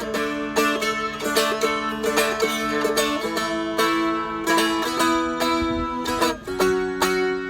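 Seagull Merlin, a small four-string dulcimer-style instrument, strummed in a steady rhythm with ringing drone strings under the melody. The chord changes about six seconds in.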